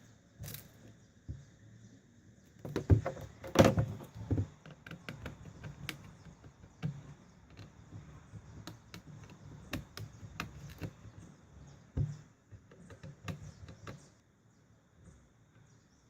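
Irregular clicks, taps and knocks of hands working on a netbook's plastic case and parts during a RAM upgrade. A cluster of louder knocks comes about three to four seconds in and a single sharp knock about twelve seconds in; the sounds thin out near the end.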